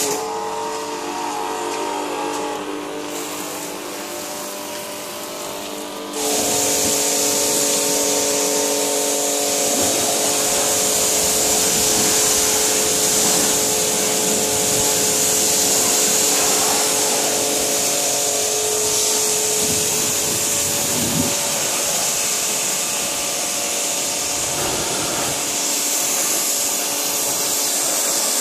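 Kärcher 140-bar electric pressure washer running, its pump motor whining steadily under the hiss of the water jet spraying from the lance onto the car. The sound is a little quieter for the first few seconds and comes back up suddenly about six seconds in.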